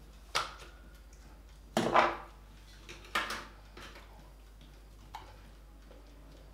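Kitchen utensils and containers knocked and clinked on a worktop while food is being seasoned: a few separate sharp knocks, the loudest a short clatter about two seconds in, and fainter taps later on.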